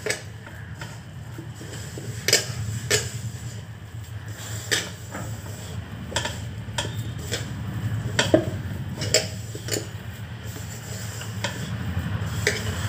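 A hand mixing dry spice powders and flour in a bowl: rubbing and stirring with irregular sharp clicks and scrapes against the bowl, over a steady low hum.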